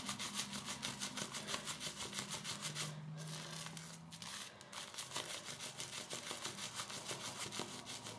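Lathered horsehair shaving brush being squeezed and worked through the fingers: quiet, quick, even strokes of wet creamy lather, several a second.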